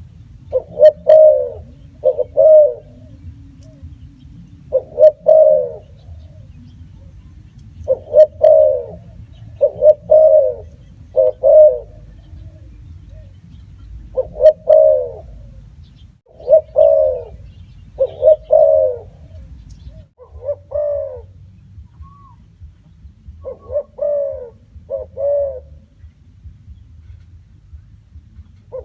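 Spotted dove cooing: low coos repeated in short groups of two or three, each note arching down in pitch, with gaps of a second or two between groups, over a steady low hum.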